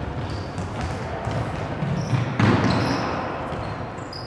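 Futsal play in a sports hall: the ball being kicked and bouncing on the wooden floor, with short high squeaks of shoes. A louder surge of noise comes about two and a half seconds in.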